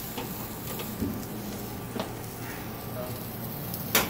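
Steady low hum of a kitchen with a few faint light knocks, then one sharp clack just before the end.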